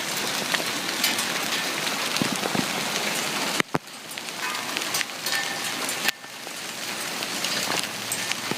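Hailstones about the size of quarters pelting down in a dense, steady clatter, with many sharp separate impacts standing out. The din drops off suddenly about three and a half seconds in and again about six seconds in, each time building back up.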